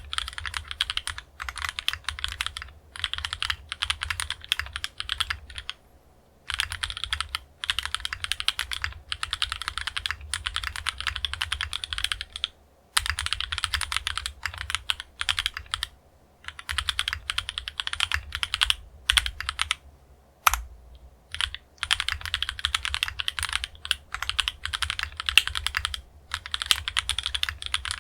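Typing on a KMG B60 R1 custom mechanical keyboard with TTC Tiger switches, an aluminium plate with Poron foam and OTC MODO Light keycaps: runs of fast keystrokes broken by short pauses every few seconds.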